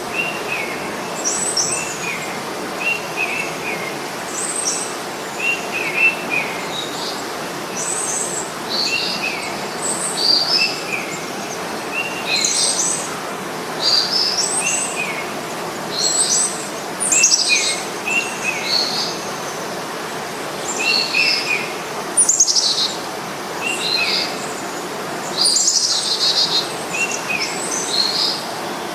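Small birds chirping throughout: quick short notes, some in little falling clusters of two or three and others higher and sharper, repeating every second or so over a steady outdoor hiss.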